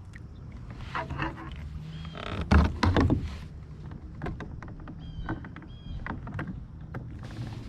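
Knocks and clatter of gear being handled on a plastic fishing kayak, with a louder cluster of knocks and rustling about two and a half seconds in. Two short high chirps come near the middle.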